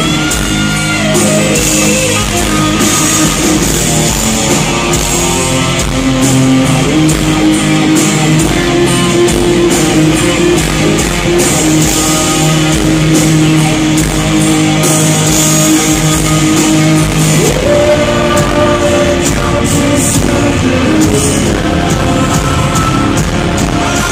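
Rock band playing live, heard from the audience: electric guitars, drums and sung vocals with long held notes.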